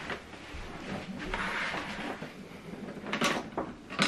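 A flat-screen TV on its stand being turned around by hand on a tabletop: a scraping, rubbing noise, then two knocks near the end as it is set in place.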